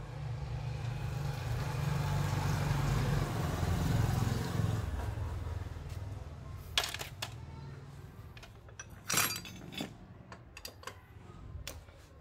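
A passing motor vehicle's engine hum swells and fades over the first several seconds. Then come a few sharp metallic clinks of hand tools and small engine parts being handled, two of them louder, about seven and nine seconds in.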